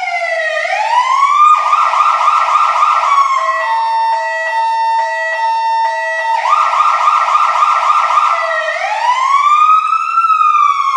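Fire truck's electronic siren cycling through its modes. A slow wail falls and rises, then a fast yelp starts about a second and a half in. Around three seconds in it switches to alternating steady high and low tones, goes back to the yelp at about six seconds, and returns to the wail near nine seconds.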